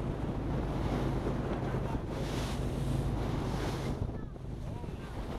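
Fishing boat at sea in rough weather: a steady low engine hum under heavy wind buffeting the microphone and the wash of waves, with louder swells of wind and spray about two seconds in and again about three and a half seconds in.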